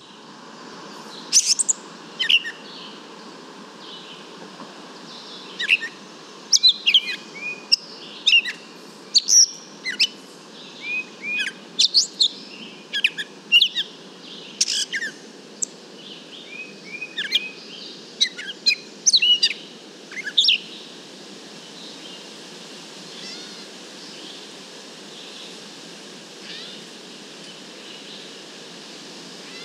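Gray catbird singing a long run of short, varied notes, picked up through a parabolic microphone at about 80 feet. The song stops about two-thirds of the way through, leaving a steady background hiss.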